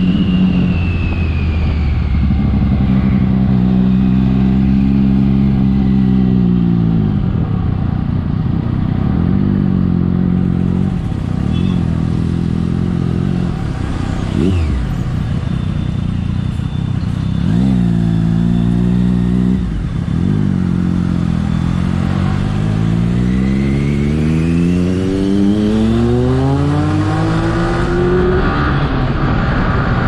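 Triumph Daytona 675 inline-three motorcycle engine: revs falling as it slows, idling with a couple of short throttle blips, then climbing steadily as it accelerates away. A thin high whistle rises and falls with the revs.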